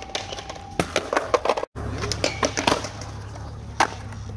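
Skateboard on concrete: sharp clacks and knocks of the board, then, after a brief dropout in the sound, the steady low rumble of its wheels rolling over smooth concrete with a few more clacks and one sharp one near the end.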